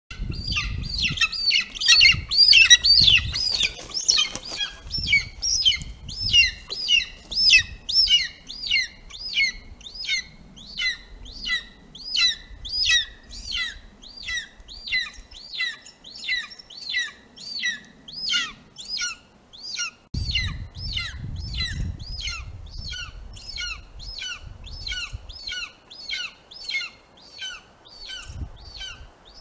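Golden eagle calling: a long series of high, thin chirping calls, about two a second, loudest in the first few seconds. Low rustling thumps come under the calls near the start and again about 20 seconds in.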